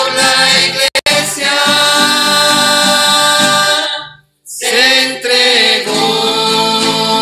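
Mixed group of voices singing a Spanish hymn in unison with acoustic guitar accompaniment. The sound cuts out twice very briefly about a second in, stops for about half a second just after four seconds in, then the singing resumes.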